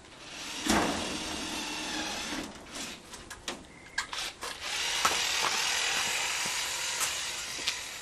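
Scraping and rubbing against a corrugated FRP roof panel during repair work on a hole in it: one long scrape of about two seconds, a few sharp knocks and clicks, then a second scrape of about three seconds.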